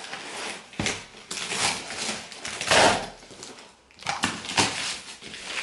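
Crinkling and rustling of packaging as hands rummage in a cardboard box and lift out a foil insulation pouch, in a series of irregular bursts, the loudest about three seconds in.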